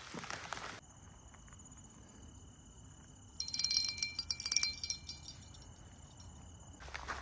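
Small brass bite-alarm bell hanging on a fishing rod's line, jingling for about a second and a half as it is handled and set swinging. Under it, steady high-pitched insect buzzing.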